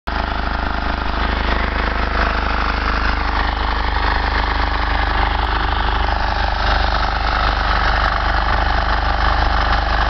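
The small single-cylinder air-cooled engine of a KisanKraft walk-behind potato harvester running steadily as the machine works along a row.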